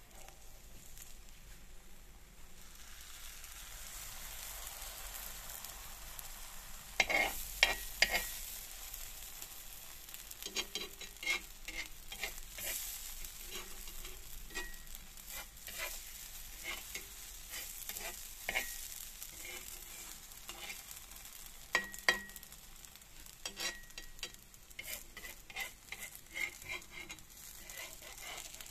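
Pancake batter sizzling in a nonstick frying pan, with a slotted metal spatula scraping and clicking against the pan as the pancake is pried up and turned. The sharpest clicks come about a quarter of the way in and again past the middle.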